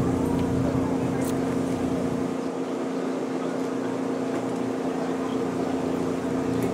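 Steady drone of an idling engine: one even hum that holds its pitch throughout, with a faint click about a second in.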